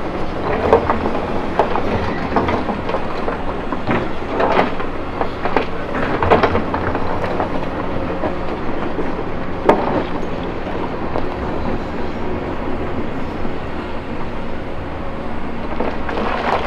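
Caterpillar 312E L excavator's diesel engine running steadily, with irregular knocks and clanks of rocks against the steel bucket and each other as they are moved, the sharpest about ten seconds in.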